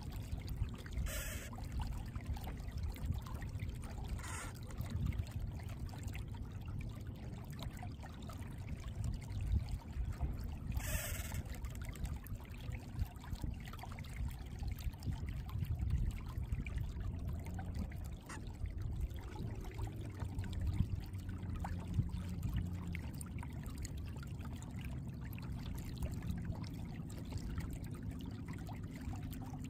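Water trickling and lapping against a kayak's hull as it moves along under a trolling motor, over a steady low rumble, with a few brief clicks.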